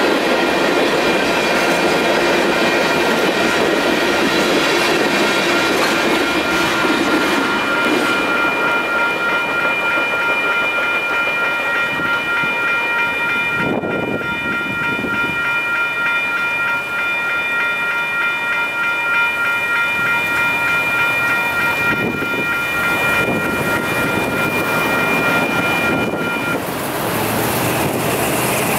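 The last cars of a freight train roll past with a clattering wheel noise, fading out about halfway, over the steady ringing of the grade-crossing warning bells. The bells keep ringing while the gates start to rise and stop near the end.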